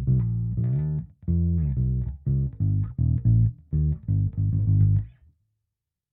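Electric bass guitar, a Squier Precision Bass with a DiMarzio Model P pickup, played through a Hiwatt Bulldog 440 bass amplifier. A line of held notes slides in pitch, then a run of short, separate plucked notes ends cleanly about five seconds in.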